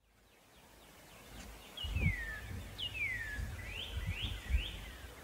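A songbird whistling: two long down-slurred whistles, then three quick rising notes, over a low rumble with a few thumps.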